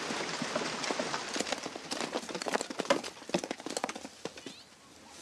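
An acacia tree being shaken by an elephant: its canopy rustles, then a dense patter of sharp clicks from seed pods and twigs dropping to the ground, thinning out near the end.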